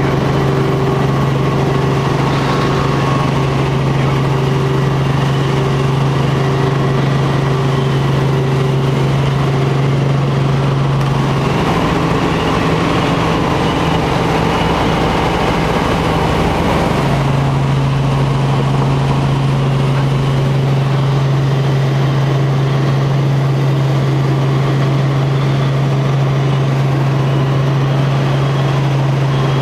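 Helicopter engine and rotors droning steadily, heard from inside the cabin in flight. The steady low hum gives way to a broader rush for about five seconds midway, then returns.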